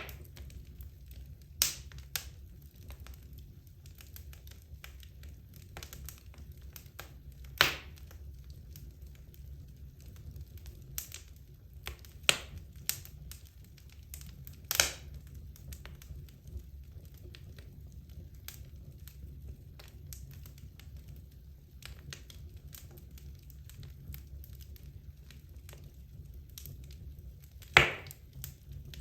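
Wood logs burning in a fireplace: a low steady rumble from the flames with scattered sharp crackles and pops, the loudest near the end.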